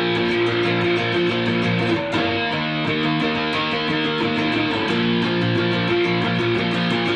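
Sunburst semi-hollow electric guitar strumming power chords in a steady rock-and-roll rhythm of even strokes. The chord changes about two seconds in and changes back about five seconds in.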